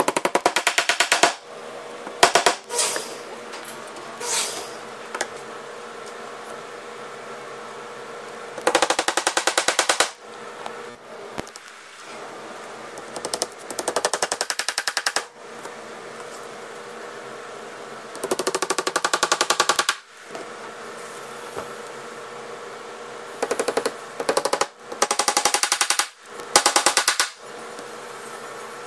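Plastic dead blow hammer driving metal cam lock fasteners into plywood cabinet panels, in several bursts of quick, rapid blows lasting one to two seconds each.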